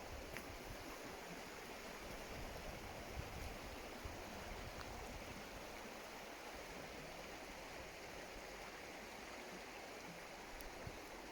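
Steady rushing of a stream of running water.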